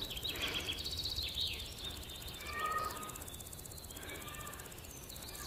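Faint bird chirping: short, high chirps repeating in the background over low room noise, with a brief cluster of calls about two and a half seconds in.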